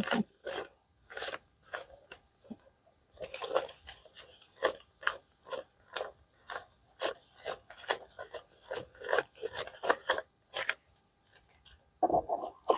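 Paper dollar bills being counted by hand: an irregular series of short, crisp rustles and snaps, about two a second, as each note is flicked over.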